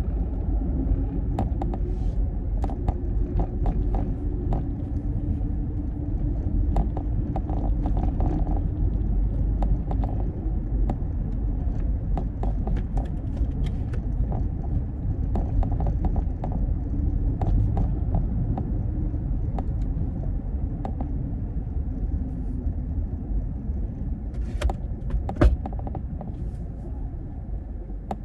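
Low road rumble and engine drone inside the cabin of a 2012 Toyota RAV4 on the move, with scattered light clicks and rustles over it. A sharp click about 25 seconds in is the loudest sound.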